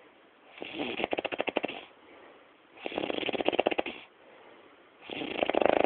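Heavy snoring: three long, rattling snores about two seconds apart, with quieter breathing between them. The last snore, near the end, is the loudest.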